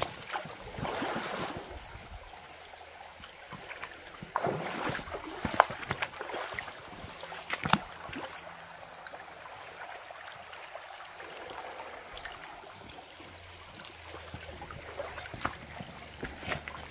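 Footsteps on loose river stones, with stones clacking and crunching underfoot now and then, over the steady trickle of a shallow creek.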